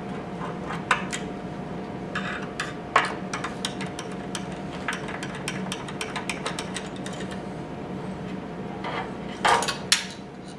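Hand screwdriver unscrewing the small mounting screws of a circuit board from a sheet-metal platform: a run of light metallic clicks and scrapes, with louder knocks near the end as the board is lifted free.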